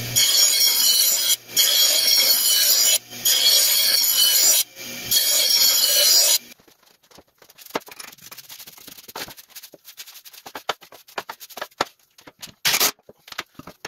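Bench grinder wheel grinding the edge of a steel lawn mower blade in long passes, with three brief breaks when the blade is lifted off the wheel; the grinding stops about six seconds in. After that come quieter scattered scrapes and knocks as caked grass clippings are scraped off the underside of the mower deck, with a couple of louder scrapes near the end.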